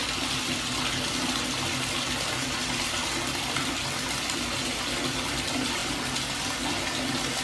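Bathtub faucet running, a steady stream of water pouring into the tub.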